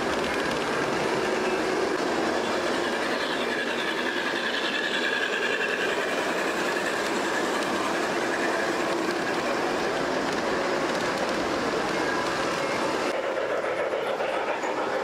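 G-scale model trains running on their track, a steady rolling and rattling of wheels on rail. The sound shifts slightly about thirteen seconds in.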